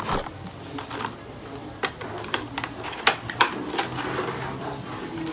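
Irregular sharp clicks and taps of small plastic cosmetic containers being handled and opened.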